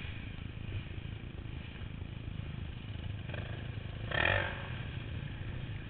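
Enduro motorcycle engines running in the distance, with a brief louder burst about four seconds in.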